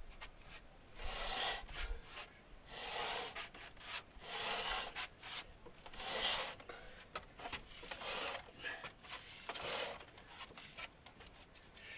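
Wooden cradle under a heavy Rockwell metal lathe scraping over wooden planks as it is shoved along them, in a series of separate rasping scrapes, one every second or so.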